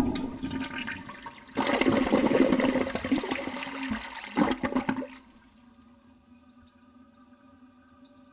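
Water splashing and churning in a basin as a small softshell turtle swims hard through it, in two bouts that die away about five seconds in, leaving a faint steady hum.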